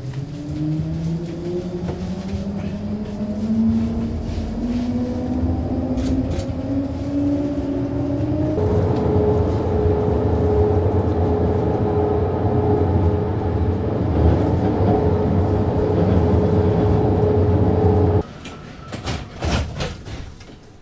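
Electric tram's traction motors whining in a rising pitch as it accelerates, then holding one steady tone over a rumble as it runs at speed. The sound drops away suddenly near the end, leaving a few clicks.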